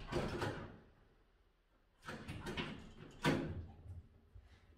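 Metal-framed glass door being moved by a wolf-like dog: a few faint rattling knocks, a pause, then more rattling with a sharper knock about three seconds in.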